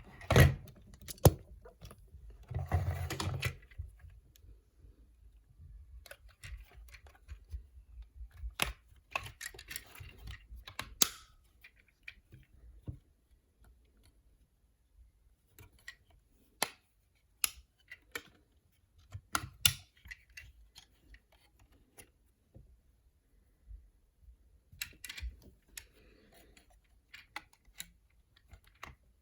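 Handling of a plastic toy figure and its packaging: scattered sharp clicks and taps, with two short bouts of rustling, one about three seconds in and another around ten seconds in.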